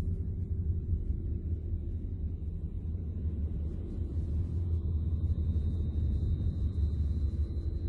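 Low, steady rumbling drone from electromagnetic signals of Jupiter's moon Io converted into sound and presented as a NASA recording. A thin, steady high tone fades in about halfway through.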